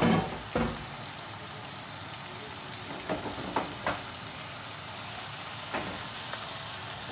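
Chicken thighs seasoned with salt, pepper and paprika searing in hot oil in a pan, a steady sizzle as they brown on one side.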